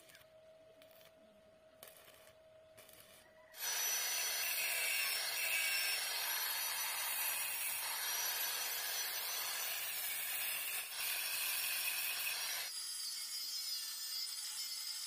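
Electric angle grinder grinding the welded joints of a steel rebar frame smooth, starting suddenly about three and a half seconds in after a few faint ticks, then running steadily with a high wavering whine. Near the end the sound turns thinner as the grinding changes.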